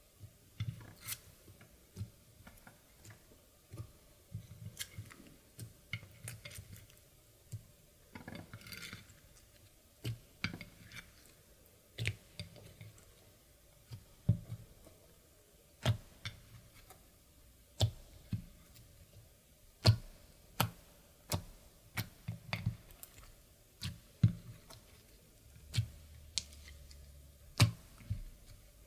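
Clear slime being mixed and pressed by hand, giving sharp, irregular pops and clicks about once or twice a second, with soft squishing between.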